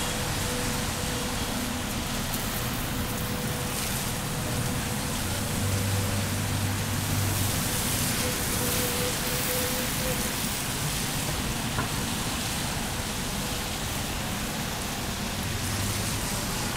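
Steady rain falling on a city street, an even hiss, with a low hum of road traffic that swells briefly about six seconds in.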